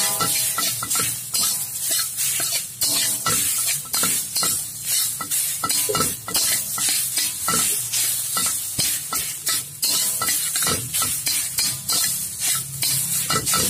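Metal spatula scraping and turning rice in a hot pan over a steady sizzle of frying, with repeated scrapes and knocks of the spatula against the pan.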